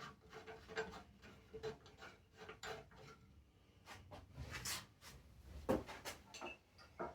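Scattered clicks, knocks and scrapes of hands and tools working on a vintage Briggs & Stratton engine as its metal shroud is taken off, with one sharper knock a little before six seconds in.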